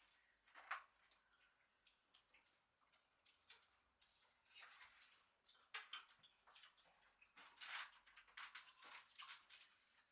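Near silence with faint tabletop handling noises: light scratches and small clinks, the sharpest clink about six seconds in.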